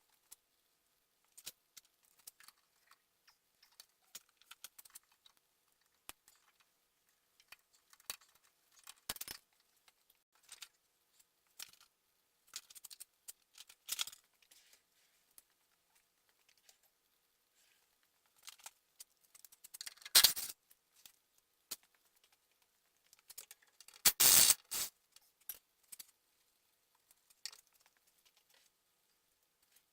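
Hand tools clinking and knocking against metal under a vehicle in scattered irregular clicks, with two louder clanks or scrapes about two-thirds of the way through.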